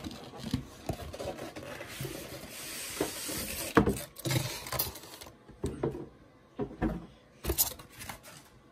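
A model airliner's box being opened by hand: the cardboard and polystyrene packaging rubbing and sliding, then a string of separate knocks and thumps from about four seconds in as the polystyrene casing comes out.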